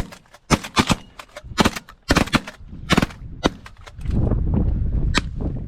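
A volley of shotgun fire from several hunters shooting at pigeons, about ten shots in quick, uneven succession over three and a half seconds. A low steady rumble follows near the end.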